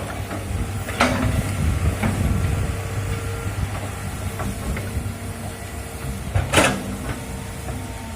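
Excavator's diesel engine running steadily while it works, with short sharp bursts of noise from the machine's work about a second in and a louder one near the end.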